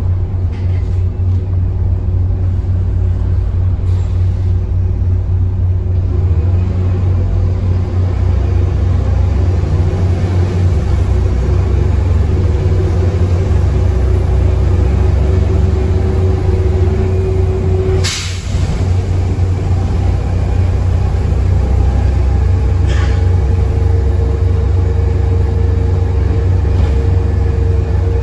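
Volvo B7TL double-decker bus's diesel engine heard from on board, pulling hard with a heavy rumble and a slowly rising transmission whine. About two-thirds of the way through a sharp clunk and a brief drop in the engine note mark a gear change, after which a new, higher whine starts rising as it pulls on.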